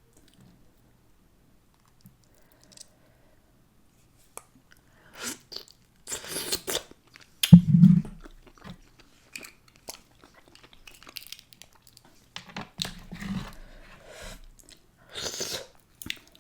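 Close-miked mouth sounds of eating: chewing, biting and crunching food. They start about five seconds in, after a quiet stretch, with one loud low thump about seven and a half seconds in.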